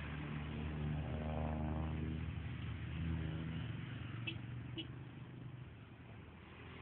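A low engine running steadily, fading over the second half, with two brief high chirps a little past the middle.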